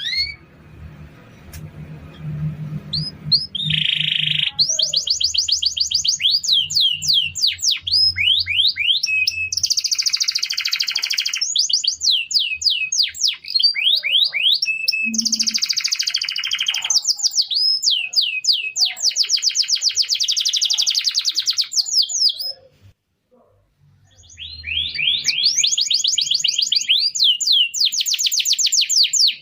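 Domestic canary singing: long, very rapid trills alternating with quick sweeping whistled notes, broken by a short pause about three-quarters of the way through.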